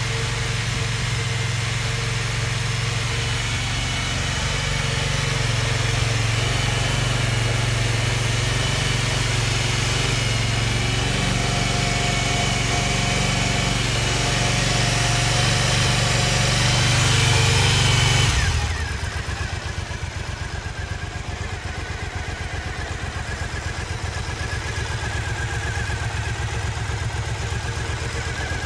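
Triumph Bonneville America LT's 865cc parallel-twin engine running steadily at idle. About two-thirds of the way through, its sound drops suddenly and becomes quieter.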